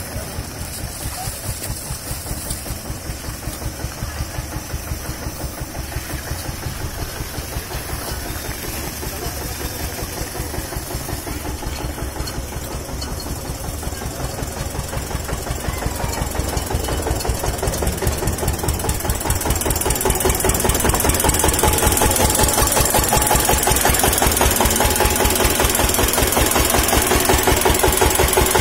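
Tractor diesel engine running with a steady knocking beat, growing louder about two-thirds of the way through.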